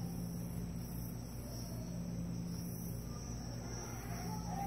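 Steady low background hum with a faint, high, insect-like chirring throughout.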